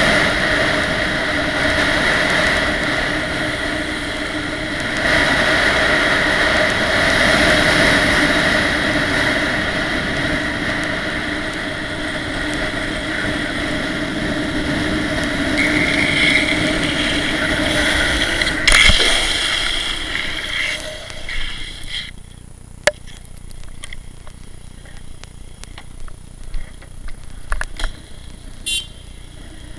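Longboard wheels rolling fast down asphalt with wind rushing over the microphone and a steady hum from the wheels. About two-thirds through there is a sharp knock, and soon after the rolling and wind noise die away, leaving quieter scattered clicks and scuffs.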